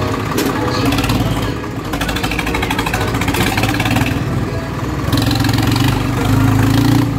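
Tractor's diesel engine running steadily as the tractor is driven along a road, growing louder in the last couple of seconds.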